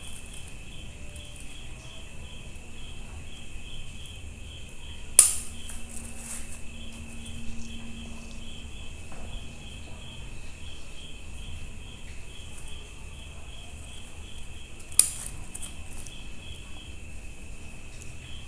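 A cricket chirping steadily in a rapid pulsing rhythm, with two sharp clicks about ten seconds apart, the loudest sounds in the stretch.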